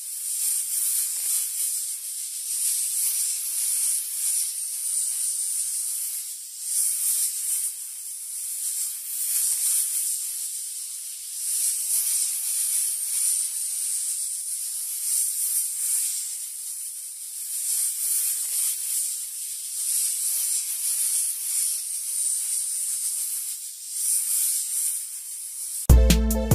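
A snake hissing over and over, each hiss swelling and fading every second or two. Music with a beat starts abruptly near the end.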